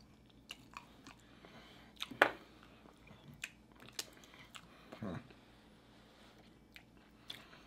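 Chewing and biting of turkey wing meat and cheesy spinach casserole, with scattered soft wet clicks and smacks from the mouths.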